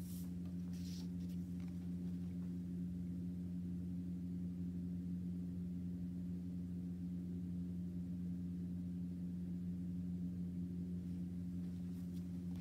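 A steady low hum holding one pitch, with a few faint taps in the first second or so.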